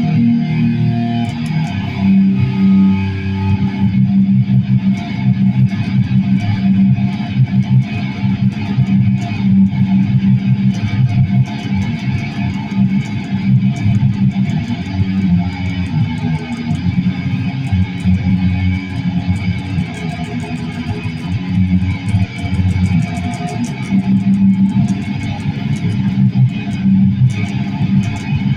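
Electric guitar being played, a steady run of low sustained notes and chords.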